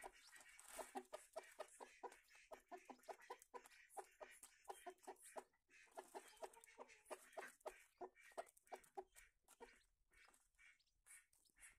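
Mother hen clucking to her newly hatched chicks: a quick, faint run of short, low clucks, about four or five a second.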